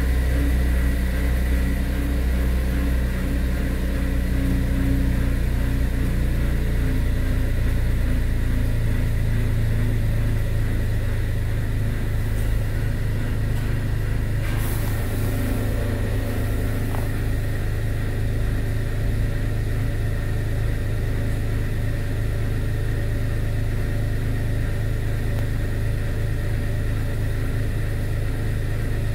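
2019 Chevrolet Malibu 1.35 e-Turbo's three-cylinder engine idling, heard from inside the cabin as a steady low drone that shifts in pitch about seven seconds in. The owner complains of a loud "tank noise" at start-up that he finds unacceptable.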